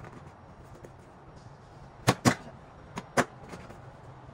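Sharp wooden knocks, two quick pairs about a second apart, as a wooden Shaker cabinet door is handled and bumped against a wooden workbench.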